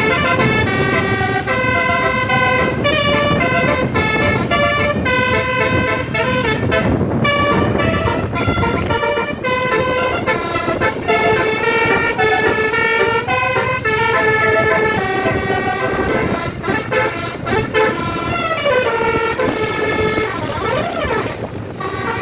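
Tour bus 'telolet' multi-tone air horn sounding a melody of stepped, held notes, with a wavering siren-like glide near the end.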